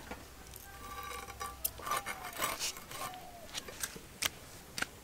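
Soft lote fish (Bombay duck) being cut on an upright bonti blade over a wet banana leaf: scattered wet clicks and taps of blade and fish, with a sharper click a little past four seconds in.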